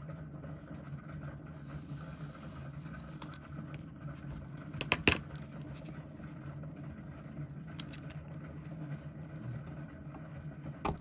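A few sharp little metallic clicks and clinks of watch parts and tools being handled at the bench, the loudest cluster about five seconds in and a few more near the end, over a steady low hum.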